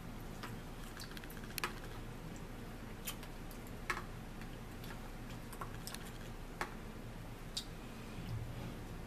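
Scattered sharp clicks and taps of a metal fork against a plastic food tray and plates during a meal, about a dozen in all, with the loudest a little after one and a half seconds, near four seconds and about six and a half seconds in. A steady low hum runs underneath.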